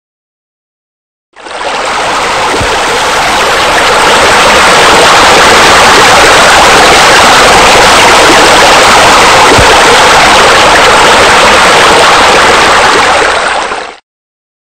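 Loud, steady rushing water, like a waterfall or spillway. It starts abruptly about a second and a half in and cuts off abruptly near the end.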